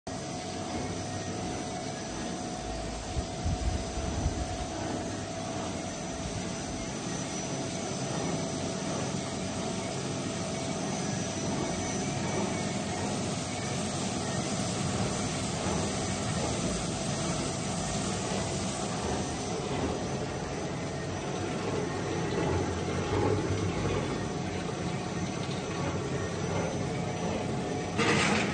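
Ore separating machine running steadily, a constant mechanical hum with a whine held at one pitch. A few knocks sound about three to four seconds in, and a short louder burst comes near the end.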